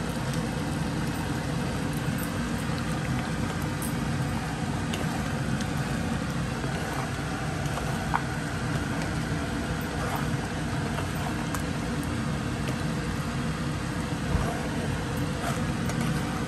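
Mutton korma simmering in the pot, with faint bubbling and a few small pops over a steady low hum.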